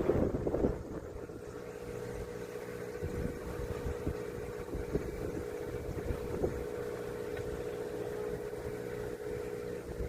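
Motorboat engine running steadily with a constant drone, with wind noise on the microphone that is strongest in the first second.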